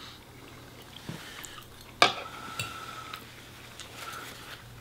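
Metal forks tapping and scraping on plates while eating, with one sharper clink about two seconds in that rings briefly.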